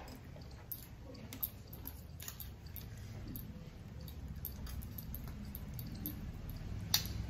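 Close-up eating sounds: chewing and the soft squish of rice and curry mixed by hand, with scattered small clicks and one sharper click near the end.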